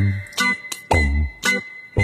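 Background music with a steady beat of about two low thumps a second under a long held high note.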